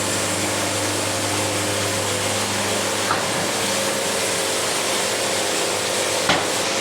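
Portable band sawmill running steadily through a cut in a log, its freshly aligned band cutting smoothly. A constant machine hum with even noise over it throughout, with a faint tick a few seconds in.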